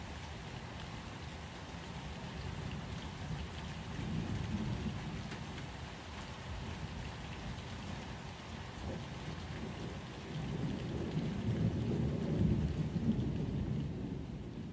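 Steady rain with low rolling thunder, the rumble swelling about four seconds in and again, louder, near the end.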